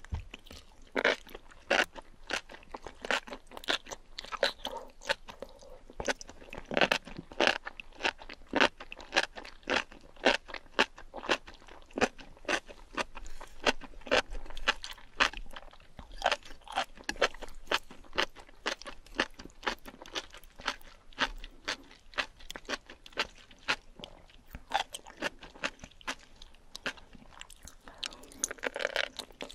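Close-miked chewing of a mouthful of enoki mushrooms and octopus in spicy sauce, at about two crunchy, wet chews a second. A denser burst of wet sound comes near the end as a big new mouthful of enoki goes in.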